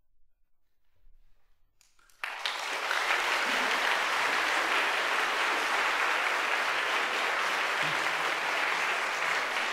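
A hush of about two seconds, then audience applause breaks out all at once and continues steadily.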